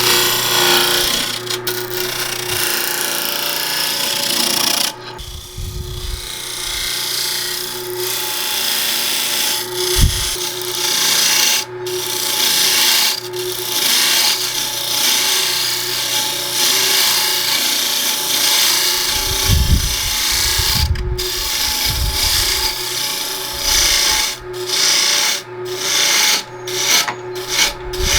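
Gouge cutting a spinning cedar blank on a wood lathe: a steady rasping scrape over the even hum of the lathe. Near the end the cut breaks off and resumes again and again in short passes.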